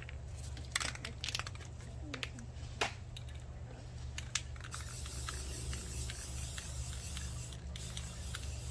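Aerosol spray-paint can spraying: a steady hiss that starts about halfway through, with a brief break near the end. Before it, a few light clicks and taps.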